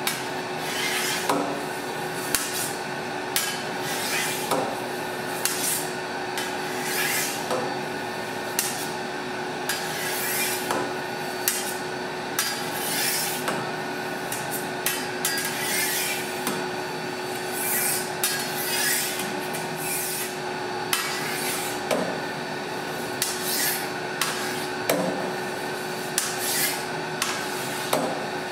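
Stirring paddle sweeping through cut cheese curds and whey in a stainless steel vat, a swishing scrape about once a second, over a steady machine hum.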